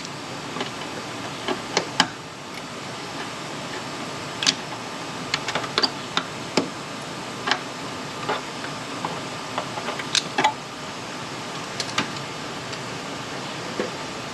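Light clicks and taps of tools being handled, a dozen or so, irregularly spaced over a steady background hum.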